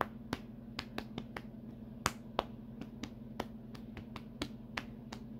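A drumbeat made with the hands: sharp taps at about four a second in an uneven, beat-like pattern. A steady low hum runs underneath.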